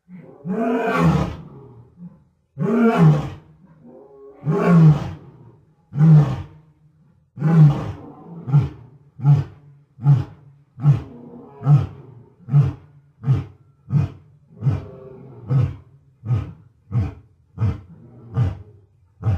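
A West African lion roaring: a bout that opens with a few long, deep roars and then settles into a run of short grunts, about one every 0.7 seconds, that go on until near the end.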